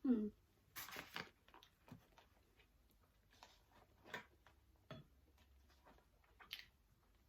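Quiet room with faint, scattered clicks and knocks, a few a second at most.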